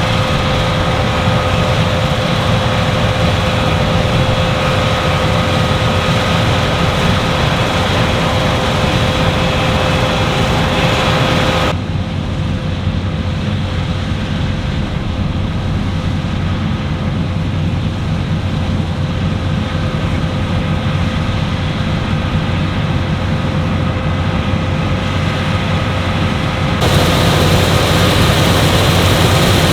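Claas Lexion 8900 combine harvester running steadily under load, its drone carrying a constant whine. About twelve seconds in the sound turns abruptly duller, and it turns bright again shortly before the end.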